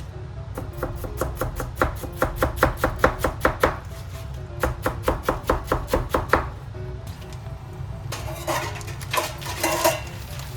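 Kitchen knife chopping quickly on a cutting board, about six or seven even strokes a second in two runs, then a few rougher knocks and scrapes near the end, over background music.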